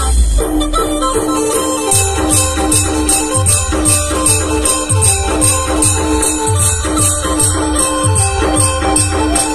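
Adivasi band music playing a timli tune: a held melody line over a steady, quick drum beat with regular high-pitched percussion ticks.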